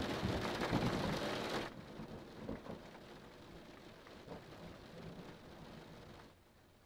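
Steady rain, loud for the first couple of seconds, then much quieter about two seconds in and quieter still near the end.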